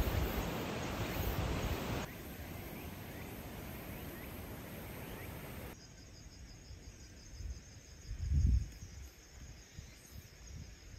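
Outdoor ambience: wind rushing over the microphone, then after a cut faint, steady insect chirring with a gust of wind about two-thirds of the way through.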